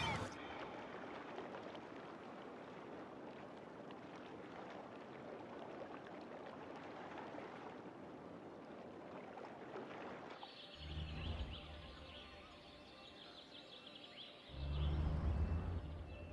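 Outdoor ambience: an even rushing noise, then, after a cut, faint high bird chirps with two low rumbles, the second one the loudest.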